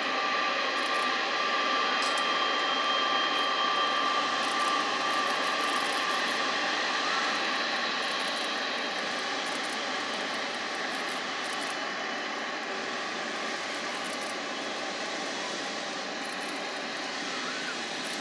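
Boeing 777-300ER's GE90 turbofan engines running at taxi power: a steady high whine over a rushing hum. The whine is strongest for the first five or six seconds, then the sound slowly fades as the airliner taxis away.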